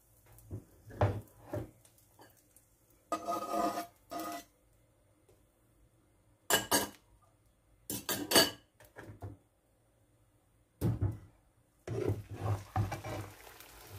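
A spatula scraping and rubbing against a small nonstick frying pan in short, separate strokes, working under a cooked slab of egg to loosen it. One longer scrape comes about three seconds in.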